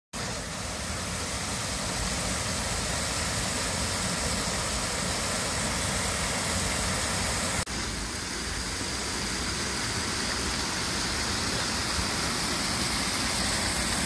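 Steady rush of water cascading over a low concrete weir into a rocky pond, with a brief break about halfway through.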